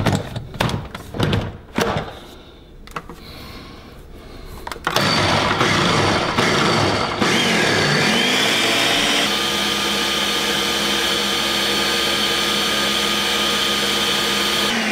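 Ninja countertop blender switched on about five seconds in. Its motor runs loud, rising in pitch and then holding a steady whine as it blends. Before it starts there are a few clicks and knocks.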